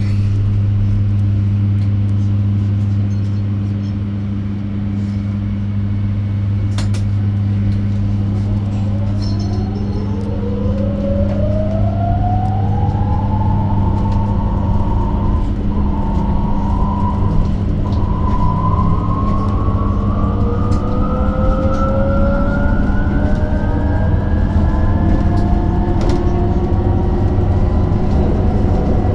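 Electric bus's traction motor whining and rising steadily in pitch as the bus accelerates, heard from inside the cabin. It starts about a third of the way in and climbs for a long stretch before fading near the end, over a steady low electrical hum.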